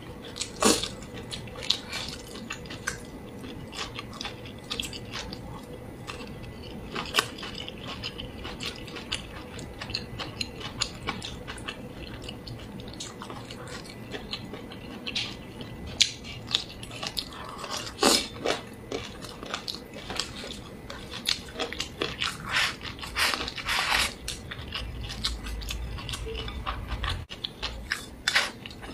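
A person chewing and biting food, with irregular crunches and mouth clicks and a few louder bites.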